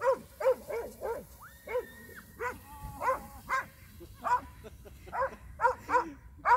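Dog barking over and over, about a dozen short sharp barks at uneven intervals. One high, steady squeal is held briefly about a second and a half in.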